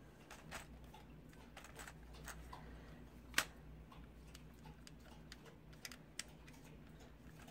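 Faint, scattered clicks and taps of hard plastic as a Voltron Black Lion toy figure is handled and its hip and leg joints are worked, with one sharper click about three and a half seconds in.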